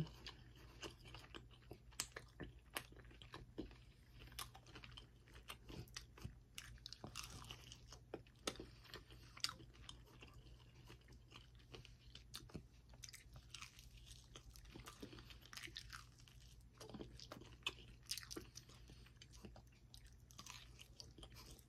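Quiet, close-up chewing and crunching of a crusty Bojangles fried chicken leg, with many small crackles and wet mouth clicks, and a fresh bite into the leg near the end.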